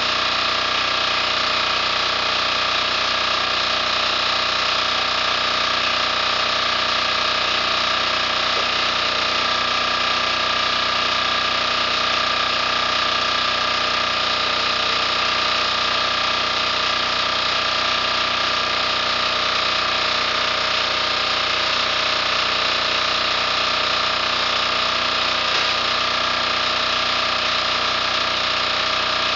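A 10 hp KOOP single-cylinder diesel engine running steadily, driving the log splitter's two-stage hydraulic pump, with the creak and crack of logs being split on the beam.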